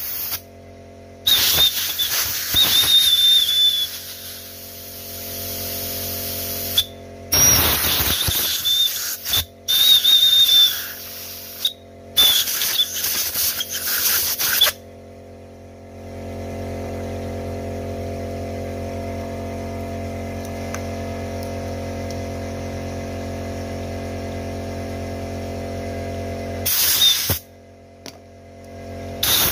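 Compressed air blasted in short bursts through the hydraulic ports of an electrohydraulic brake booster and master cylinder unit, hissing loudly, with a high whistle as the air rushes through the narrow passages. About halfway through the blasts stop and a steady motor hum runs for about ten seconds, then the blasts start again near the end.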